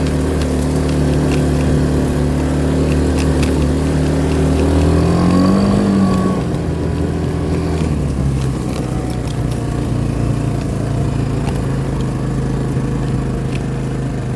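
Vehicle engine running steadily. It rises in pitch about five seconds in, then drops back and settles to a lower, steady drone a couple of seconds later.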